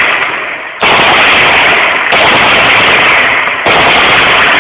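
Long, very loud bursts of automatic gunfire. One burst tails off, then new bursts start abruptly about a second in and again about three and a half seconds in.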